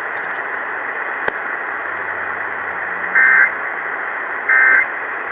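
Emergency Alert System end-of-message code received over AM radio: two short, warbling digital data bursts about 1.4 s apart over steady radio static hiss, marking the end of the alert. A single sharp click comes about a second in.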